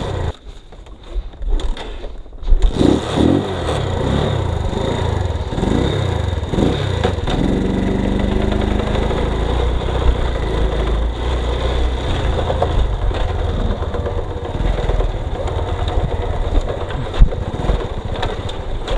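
Motorcycle engine starting about two and a half seconds in, revving up and down a few times, then settling into a steady idle.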